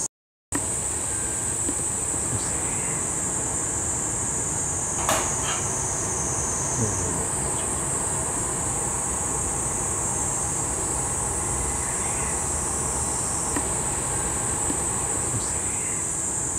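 Steady high-pitched drone of insects, over a low even rumble, with a faint click about five seconds in. The sound cuts out for half a second right at the start.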